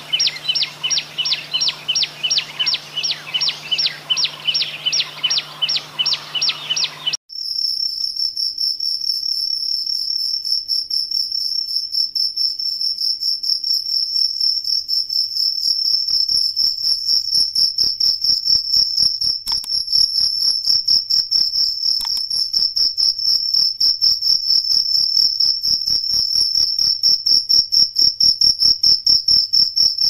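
Crickets: first a run of regular high chirps, about three a second. About seven seconds in, a sudden switch to a loud, continuous high-pitched trill that holds steady.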